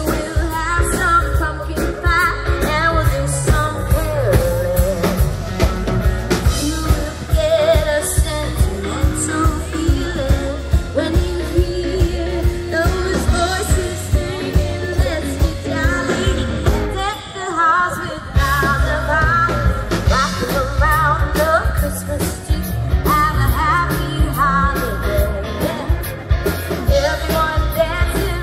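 A pop song with singing over a steady beat, the music dropping out briefly a little past halfway.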